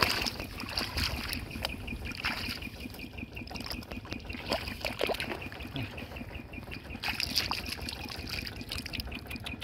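Hands splashing and groping in shallow, muddy rice-paddy water, with water trickling off as they lift out, and many small irregular splashes and clicks.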